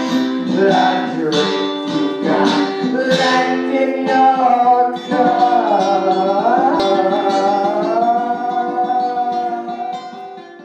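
A song with strummed guitar chords and singing. About halfway through the strumming gives way to a long held sung note that wavers in pitch, and the music fades out near the end.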